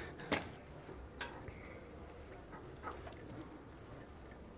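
Light clicks and rattles from a hand-built 20-metre wire loop antenna being pulled out and handled, with a few sharp ticks: one just after the start, one about a second in and a pair near three seconds.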